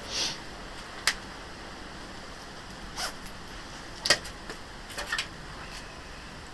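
A few sharp, isolated metallic clicks and clinks of hand tools and parts being handled at the front of a car, about a second or two apart, the loudest about four seconds in.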